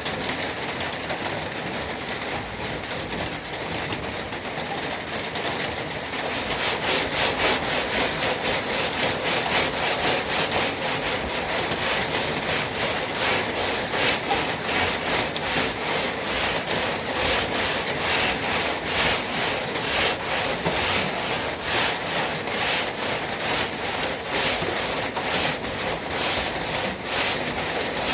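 Sandpaper scrubbed back and forth by hand over a diamond-plate truck toolbox. The scratching is steady at first and turns into louder, quick, regular strokes about six seconds in.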